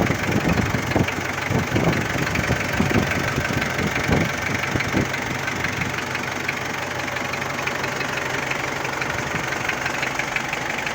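Ford Ranger 2.5-litre diesel engine running just after a cold start on heated glow plugs and starting spray, following a cranking no-start. It runs unevenly with irregular knocks for about the first five seconds, then settles into a steady idle.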